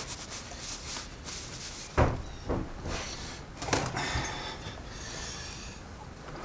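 Workshop handling noise from taking apart a transfer case: metal parts and tools knocking, clinking and scraping, with a sharper knock about two seconds in and another near four seconds.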